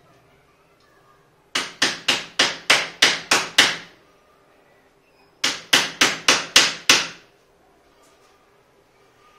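Hammer tapping the steel tubes of a collapsible wardrobe frame into their plastic connectors: two quick runs of sharp strikes, about ten and then seven, at about four a second.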